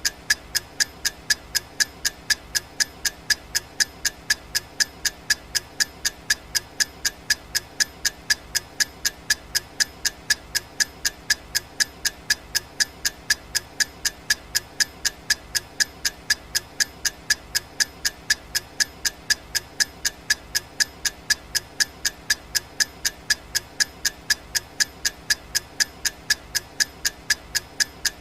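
Clock ticking sound effect of a countdown timer: sharp, evenly spaced ticks, about two a second, going on without a break.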